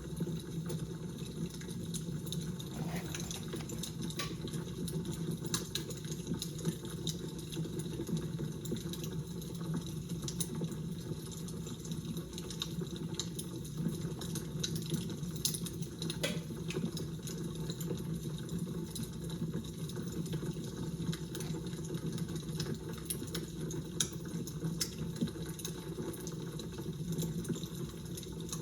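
Fire crackling: a steady low rush with scattered small pops and snaps throughout.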